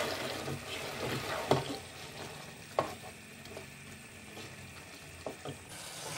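Beef pieces and their juices sizzling in a pot as a wooden spatula stirs them, with a few sharp knocks of the spatula against the pot, the loudest about one and a half seconds and about three seconds in. The meat is being fried down to dry off the last of its cooking water.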